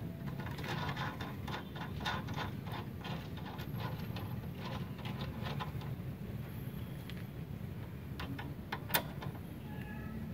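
Small metallic clicks and taps of a cable lug and nut being fitted by hand onto a MIG welder's minus output terminal bolt, with one sharper click near the end, over a steady low background rumble.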